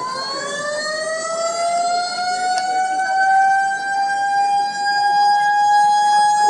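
A siren winding up, its pitch rising and then levelling off into a steady held wail.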